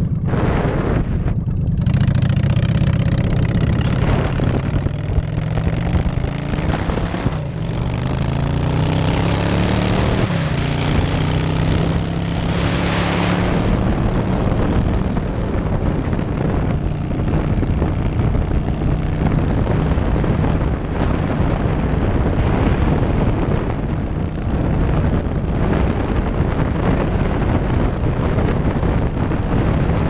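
Motorcycle engine pulling away from a stop and accelerating through the gears, its pitch climbing and dropping back at each shift over the first half, then running steadily at cruising speed. Heavy wind noise on the microphone.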